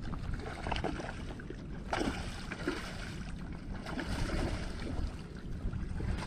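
A hooked Asian carp splashing and thrashing at the surface near the bank, with a sharp splash about two seconds in. Wind rumbles steadily on the microphone throughout.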